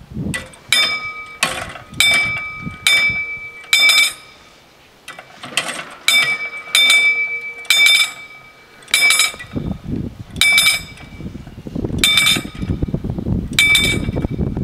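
Level-crossing warning bell striking single bright metallic rings, one every half second to a second and a half at an uneven pace, signalling that the barriers are lowering for an approaching train. Wind rumbles on the microphone from about two-thirds of the way through.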